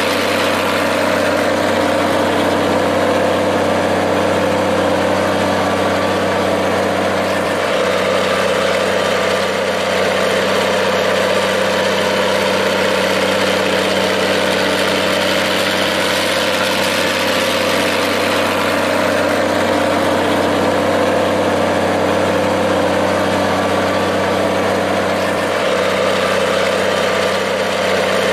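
Minneapolis-Moline G-1350 tractor engine idling steadily, a deep even hum with no change in speed.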